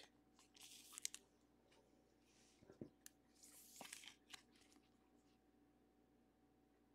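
A few faint crinkles of thin plastic as a trading card is slid into a soft plastic card sleeve, in the first half; otherwise near silence.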